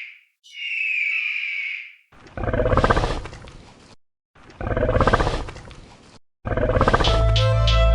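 A high, thin wavering cry, then two deep animal roars of about two seconds each; a third roar begins about six and a half seconds in and runs into synthesizer music near the end.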